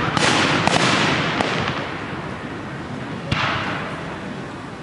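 Fireworks display: three aerial shells burst in quick succession in the first second and a half, and another about three seconds in. Each sharp bang is followed by a long hissing tail that slowly fades.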